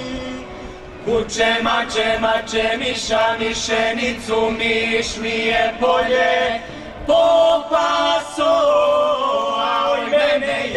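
A Serbian folk singing group singing a traditional song together, with several voices in short, rhythmic phrases. After a quieter moment at the start, the singing comes in about a second in.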